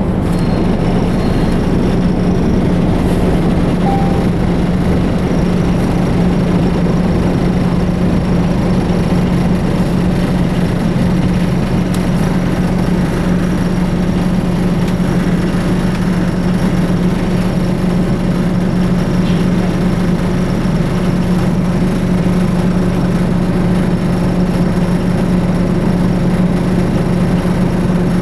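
Detroit Diesel Series 50 EGR four-cylinder diesel engine of a 2004 New Flyer D60HF articulated bus running steadily, with an even low hum that does not change.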